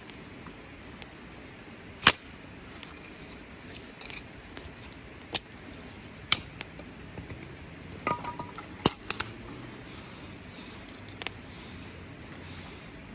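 Wood campfire crackling, with sharp pops at irregular intervals, the loudest about two seconds in and near nine seconds.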